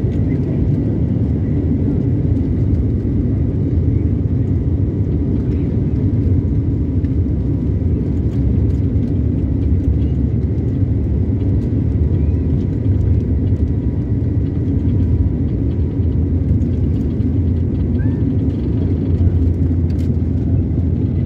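Jet airliner taking off, heard from inside the cabin: a loud, steady rumble from the engines at takeoff power as the plane speeds down the runway, with a faint steady whine above it.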